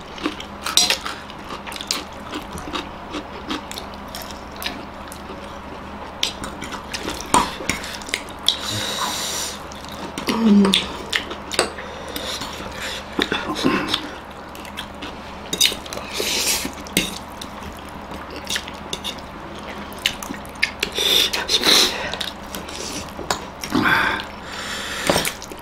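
People slurping up spicy instant ramen noodles, with several drawn-out slurps, and forks clicking against plates in between.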